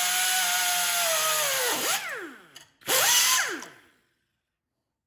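High-speed handheld power tool running with a steady high whine and hiss, then released about two seconds in and winding down. It is triggered again briefly about a second later and winds down again.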